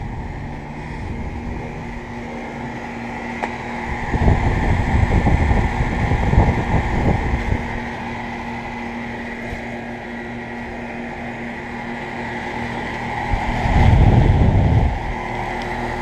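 Outdoor heat pump units running in heat mode: a steady hum of compressor and condenser fan with a constant tone. Two louder low rumbles break in, a few seconds in and again near the end.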